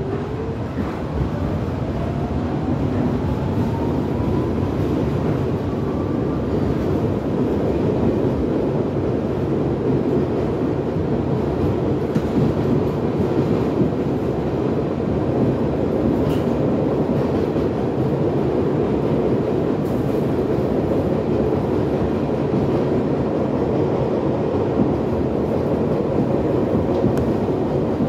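MTA R62 subway train running on the rails with a steady heavy rumble. Over the first several seconds a faint motor whine climbs in pitch as the train picks up speed, and a few faint clicks come from the track further on.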